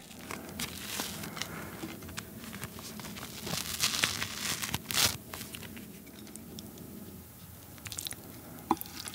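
A soft steamed flower bun being torn and unrolled by hand close to the microphone: soft tearing and rustling of the dough, with a few sharper clicks, loudest about halfway through.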